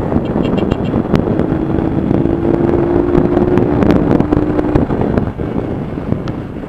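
Small street motorcycle running while being ridden, with wind buffeting the microphone; the engine holds a steady note through the middle few seconds.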